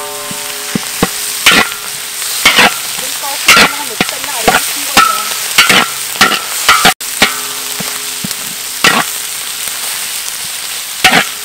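Metal spatula scraping and stirring shallots and curry paste frying in a large wok, over a steady sizzle. The scrapes come about once a second, and the wok rings briefly after some of them.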